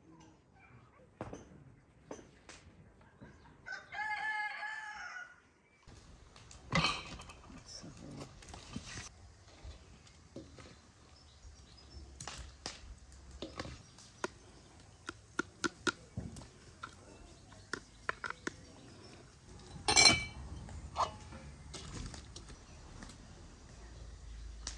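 A rooster crows once, about four seconds in. Then a metal ladle clinks and taps against glass jars and a steel bowl as chunky fruit salad is spooned into the jars, with two louder knocks.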